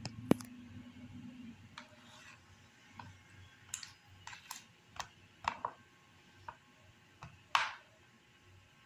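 Scattered light clicks and taps of fingers and small amulet stones against a wet plastic plate, the sharpest just after the start, with a short scrape about three-quarters of the way through.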